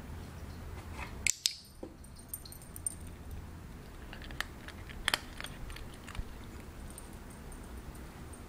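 Scattered light clicks and taps over a low steady hum, the sharpest about a second in and about five seconds in. They come from a toy poodle moving around an empty cardboard shoebox on a tile floor, its nails on the tile and its nose nudging the box.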